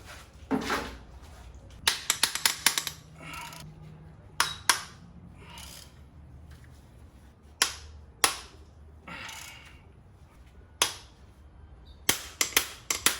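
Metal hand tools and engine parts clinking and knocking as they are handled. The sharp clicks come in scattered single knocks and two quick runs, about 2 s in and near the end, with softer rustling in between.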